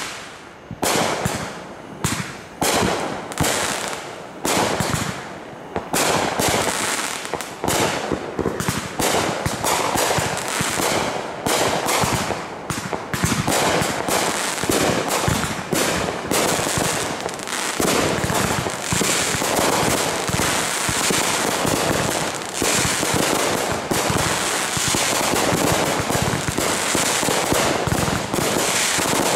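Aerial fireworks bursting overhead: separate sharp bangs for the first several seconds, then a dense barrage of rapid, overlapping bangs from about six seconds on.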